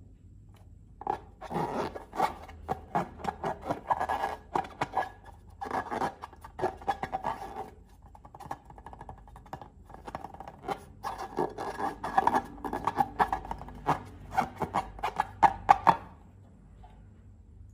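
Slime being worked by hand, with dense sticky crackling and clicking in several bursts, starting about a second in and stopping about two seconds before the end.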